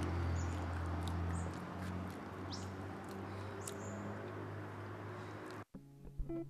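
Outdoor ambience: a low steady hum with small birds chirping now and then in short high tweets. It cuts off suddenly near the end, and a few faint plucked guitar notes begin.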